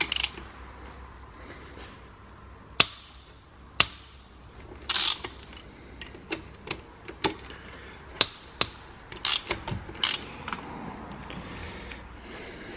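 Sharp metallic clicks and clinks of hand tools and loose engine parts, about a dozen spaced strokes with a short rattle about five seconds in, as connecting-rod cap bolts and caps are taken off a stripped engine block.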